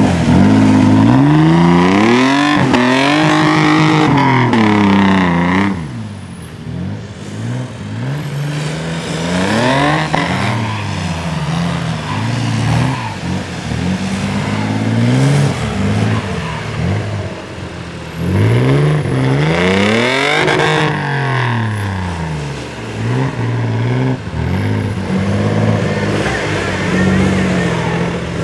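Off-road 4x4 buggy engines revving hard, the pitch rising and falling again and again as the wheels spin through deep mud and water. The revving is loudest in the first six seconds and again a little past the middle.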